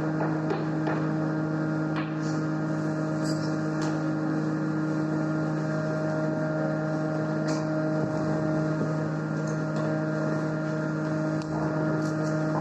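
A steady machine-like drone with a strong low hum and its overtones, with a few faint clicks and taps scattered through it.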